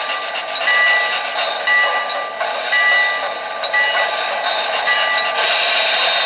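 O-scale model New York Central Hudson steam locomotive's onboard sound system with the engine standing still: the bell rings about once a second over a steady steam hiss. The bell stops about five seconds in and the hiss carries on.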